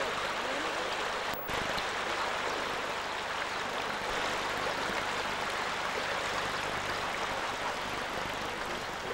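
Steady rushing of a shallow stream or creek, with a brief dropout about one and a half seconds in.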